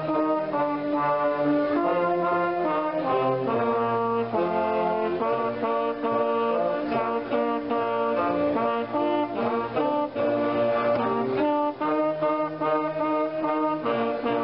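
Community concert band playing a Christmas carol, the trumpet close by loudest over saxophone and clarinets, with sustained notes moving in harmony.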